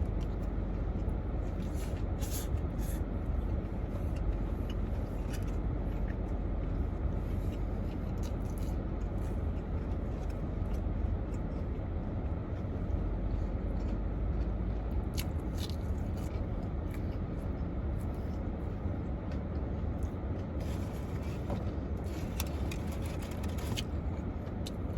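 A steady low rumble, with faint scattered clicks and smacks of someone eating a sandwich.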